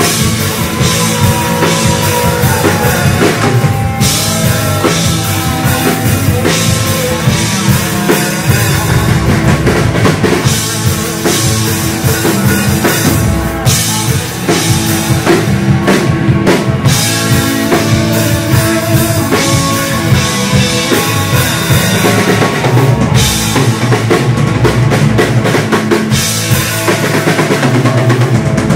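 Live rock band playing an instrumental passage: electric guitars, bass and a drum kit, with a slide guitar gliding between notes in the first few seconds.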